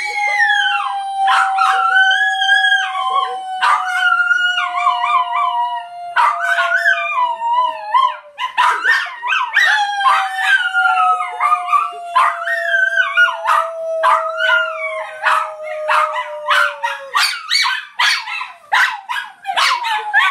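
A small dog howling in long, wavering cries, with a woman laughing in bursts alongside it.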